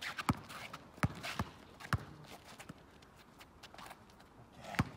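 Basketball dribbled hard on an outdoor asphalt court: four sharp bounces in the first two seconds, then a louder single knock near the end.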